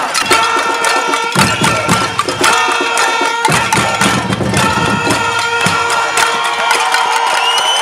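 Many cooking pots and pans being beaten by a large crowd: a dense, rapid metallic clatter of strikes, with a steady held horn note running underneath.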